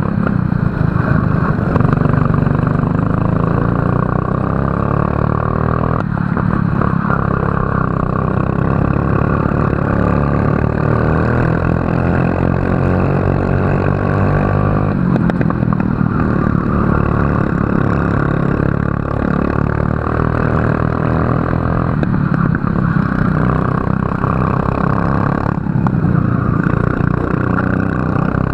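Racing kart engine running at full throttle, its pitch climbing steadily along the straights and dropping sharply about four times as the throttle is lifted for corners.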